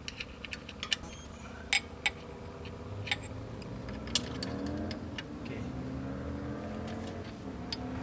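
Metal clicks and taps of an end wrench working the nuts of a Ford Model A engine's oil return pipe, sharpest about two seconds in. From about halfway, an engine runs in the background, rising slowly in pitch.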